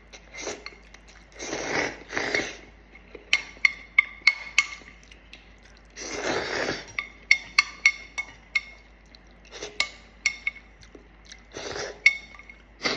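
Someone eating spicy ramen noodles: slurping and chewing, with a couple of longer slurps, and utensils clicking and clinking against the bowl many times in between.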